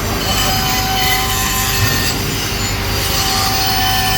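Atlas Copco LSF29 S180E pneumatic die grinder running, a steady rush of air with a high whine held at an even pitch.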